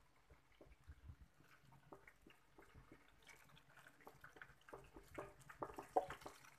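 Wooden spatula scraping and tapping thick masala sauce out of a metal pan: faint scattered clicks and scrapes that come quicker and louder in the second half.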